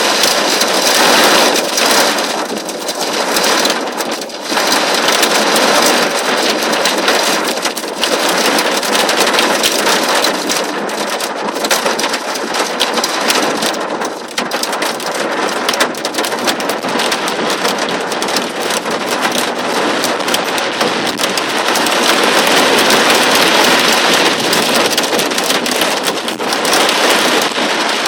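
Torrential cloudburst rain pouring down: a loud, dense, steady hiss made of countless drops striking.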